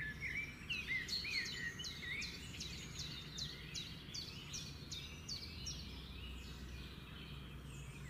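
A small songbird chirping. A few soft wavering notes open it, then comes a quick, even run of short high chirps, each falling in pitch, about three a second, over a faint low background hum.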